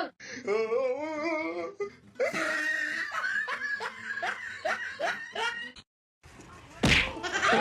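A person laughing in a run of short, repeated bursts that stops suddenly; near the end a brief sharp knock is followed by another vocal sound.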